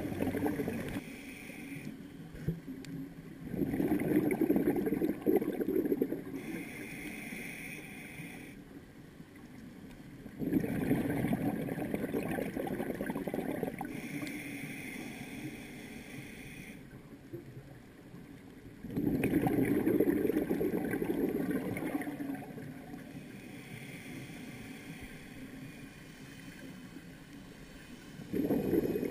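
Scuba diver breathing slowly through a regulator underwater. Roughly every eight seconds a burst of exhaled bubbles rumbles and gurgles, with a fainter hiss of inhalation between the bursts.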